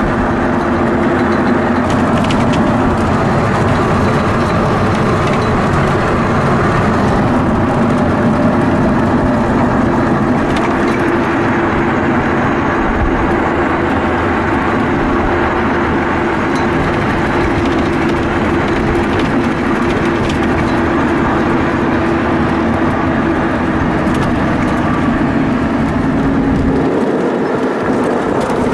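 Helicopter running with a steady drone and a constant hum, the low rumble thinning briefly near the end.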